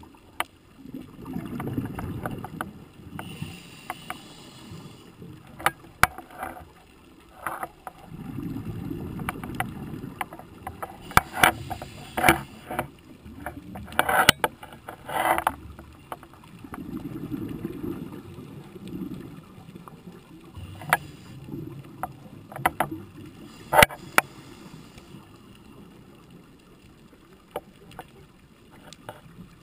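A scuba diver breathing through a regulator, heard through an underwater camera housing: a low bubbling rumble of exhaled bubbles swells and fades about every eight seconds, with a thin hiss of inhalation in between. Scattered sharp clicks throughout.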